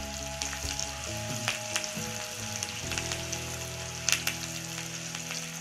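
Chopped onion sizzling in hot oil in a kadhai as it is fried toward a reddish brown for a tempering. A stirring spatula scrapes and knocks against the pan a few times, loudest about four seconds in.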